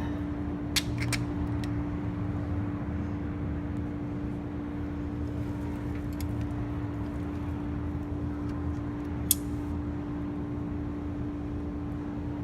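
A few light, sharp metal clicks of a hand tool working a thread insert into a bolt hole, over a steady low hum.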